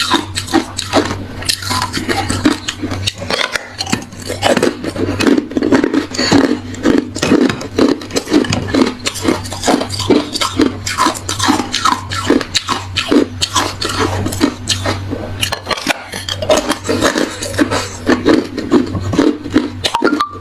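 Hard ice being chewed close to the microphone: continuous crunching, several sharp cracks a second, with a steady low hum underneath.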